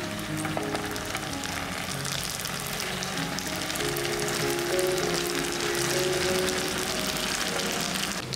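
Rice-flour garlic chive dumplings frying in shallow hot oil in a pan: a steady crackling sizzle. Background music plays under it.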